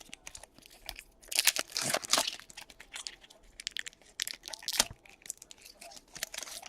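Foil trading-card pack wrapper crinkling and being torn open, loudest between about one and two and a half seconds in, followed by a run of light crackles and clicks as the wrapper and cards are handled.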